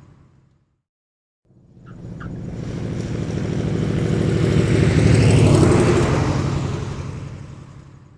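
Propeller aircraft engine passing by: it comes in from silence, builds to a loud peak a little past the middle, then fades away.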